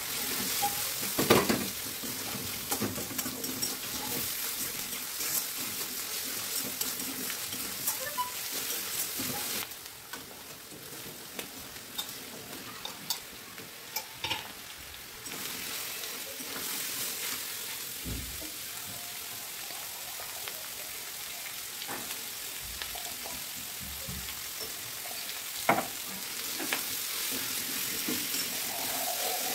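Food sizzling in a hot wok while a metal spatula stirs and scrapes, knocking sharply against the pan now and then. The sizzle drops quieter for a few seconds about ten seconds in, then picks up again.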